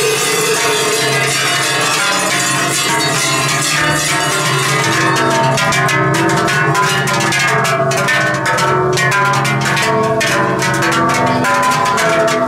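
A group of Silvesterchläuse in fir-branch costumes singing a Zäuerli, the wordless Appenzell yodel, in long held chords that shift slowly from one harmony to the next. From about five seconds in, short clicks sound over the singing.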